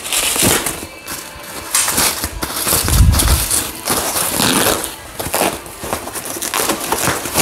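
Plastic packaging wrap crinkling and rustling as it is handled and pulled off a suspension part, with a dull thump about three seconds in.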